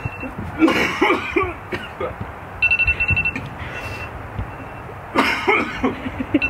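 A man coughing hard twice, once about half a second in and again about five seconds in, after bolting bananas. A timer alarm beeps in short rapid bursts about every four seconds, once near the middle and again at the very end.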